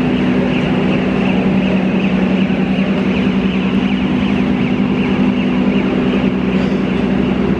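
Steady, loud engine hum of a diesel passenger train idling at the platform: a constant low drone with no change.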